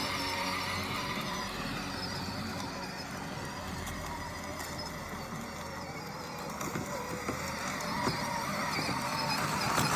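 Power Wheels ride-on toy running on its electric motors, a wavering whine with tyre noise; it eases off in the middle and grows louder toward the end.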